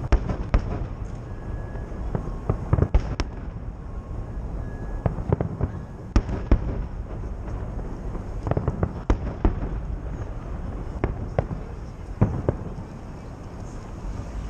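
Fireworks salute: shells bursting in sharp, irregular bangs, often several within a second, over a steady low background noise.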